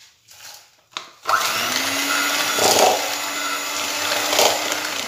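Electric hand mixer switched on about a second in and running steadily, its beaters creaming butter and sugar in a bowl.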